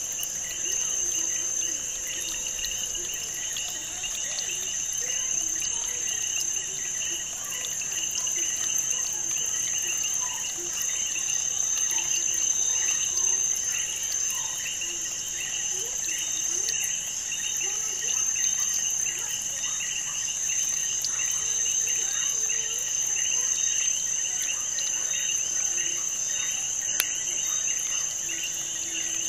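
Continuous insect chirping, like crickets, with rapid even pulsing and a steady high tone above it.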